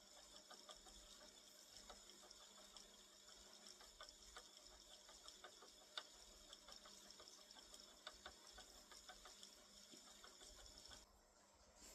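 Near silence: a spinning wheel at work making faint, irregular small clicks over a steady hiss.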